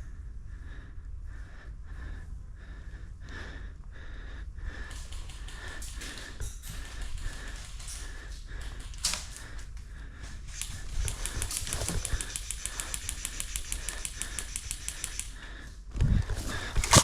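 Airsoft electric gun firing on full auto: a fast, even rattle of shots lasting about four seconds, starting about eleven seconds in. A louder burst of airsoft fire breaks out near the end. Before the firing there are soft rhythmic thuds, about three a second.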